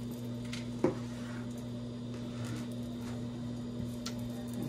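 Chef's knife cutting through a ring of sausage on a plastic cutting board: a few soft knocks as the blade meets the board, a sharper one about a second in, over a steady low electrical hum.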